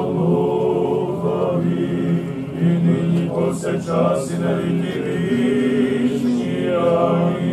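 Voices chanting together in an Eastern Christian memorial service (panakhyda), slow, with long held notes.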